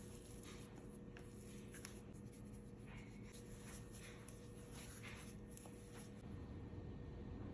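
Faint scratching and rubbing of food preparation, in many soft, irregular strokes over a steady low hum.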